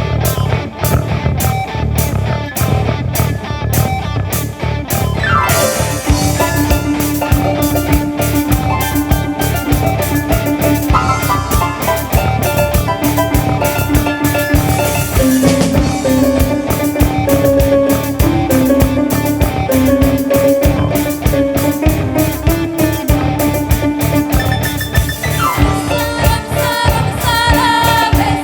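A live music ensemble playing: fast, steady drumming throughout, with sustained melody lines coming in about six seconds in after a short falling glide.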